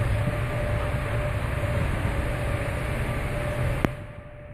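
Steady rumble and hiss of ambient noise on a cruise ship's open promenade deck, the wind and the ship's machinery and ventilation, with a constant low hum running through it. A single sharp click comes near the end, after which it drops quieter.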